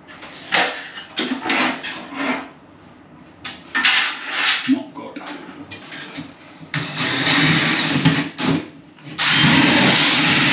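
Short clattering knocks, then a cordless drill boring into the ceiling in two runs: one of about two seconds, and a louder one starting near the end.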